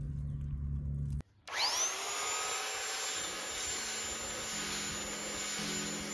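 A handheld corded electric sander starts up about a second and a half in, its whine rising as it spins up, then runs steadily against the fiberglass hull, with soft background guitar music underneath. Before the sander there is only the music.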